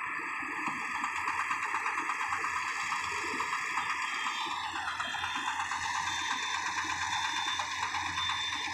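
Small engine of a walk-behind power reaper running steadily with its cutter bar working, a rapid rhythmic clatter over the engine drone; the upper part of the sound dips briefly about five seconds in.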